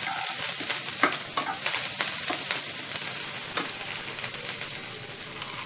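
Chopped onion, curry leaves and mustard seeds frying in hot oil in a nonstick kadhai, sizzling steadily while a wooden spatula stirs and scrapes through them, with a few sharp clicks along the way.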